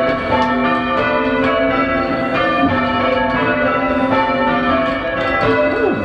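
Ring of five church bells (tenor about 8 cwt, in A) being change-rung, the bells striking one after another in an even rhythm with their tones ringing on and overlapping, heard from the ringing chamber below.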